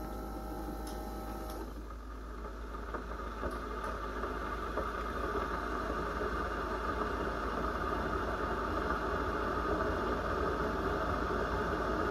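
Keurig single-serve coffee maker running near the end of its brew cycle: a steady hum for the first couple of seconds, then a hiss that grows slowly louder over a constant low hum.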